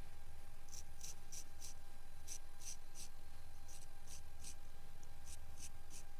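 Straight razor scraping hair off a wet scalp in short strokes. The strokes come in four groups of three or four, about three a second, with a short pause between groups.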